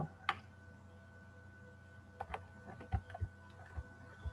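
A few faint scattered clicks and taps over a low, steady hum, with one sharper click near the start.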